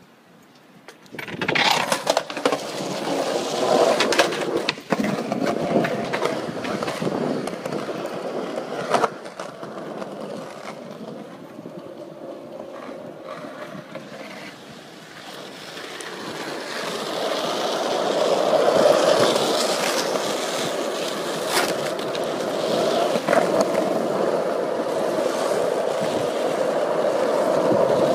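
Skateboard wheels rolling over concrete, a continuous rough rumble that starts about a second in, with a few sharp knocks along the way and growing louder in the second half.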